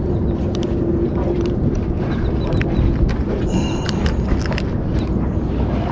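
Steady wind and water rumble on the open water, with scattered small clicks and knocks from hands unhooking a sheepshead and handling gear in a kayak. A faint steady hum fades out about halfway through.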